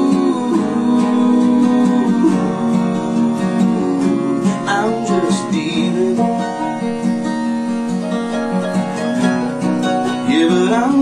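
Acoustic guitars strumming and picking a country song, played live, with no sung words.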